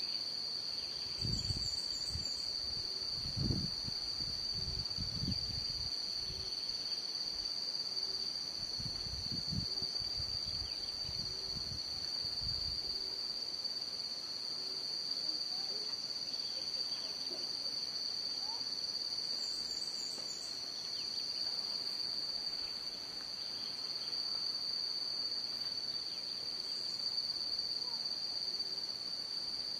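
Insects keeping up a steady, shrill, unbroken drone at one high pitch. Low rumbles come and go during the first dozen seconds, and a brief high trill sounds twice.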